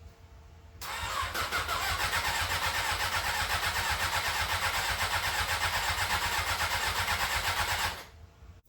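Electric starter cranking the Honda CBR600 F4i's inline-four engine with a steady rhythmic pulsing for about seven seconds, without it catching, then stopping. The fuel pump has not kicked on, so the engine gets no fuel.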